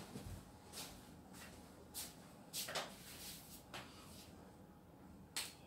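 A handful of faint, short scuffs and knocks, the loudest near the end: a person walking up to a whiteboard and handling a marker.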